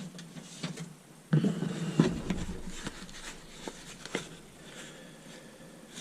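Hands handling paper packaging and box contents during an unboxing: light crinkling and small clicks and taps, with one louder bump of handling noise about a second in.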